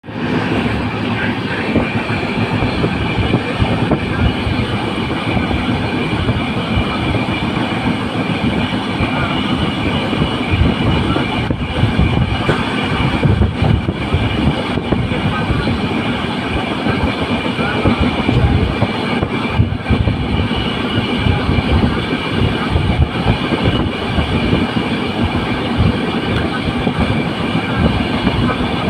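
Steady rumbling ride noise of a moving vehicle, with a few faint steady tones running through it.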